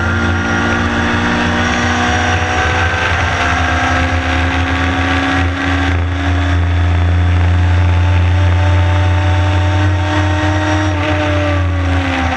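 Honda-engined Lotus race car's engine heard from inside the cockpit, pulling hard at high revs in one gear down a straight. Its pitch climbs slowly, then drops sharply near the end at an upshift.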